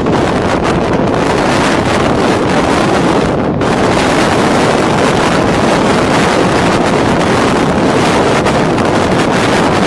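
Strong storm wind blowing across the microphone, with a loud, steady rush, mixed with heavy seas breaking. The rush dips briefly about three and a half seconds in.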